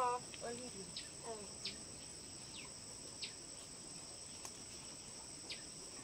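Insects droning steadily at a high pitch, with about six short falling chirps scattered through. A voice trails off right at the start.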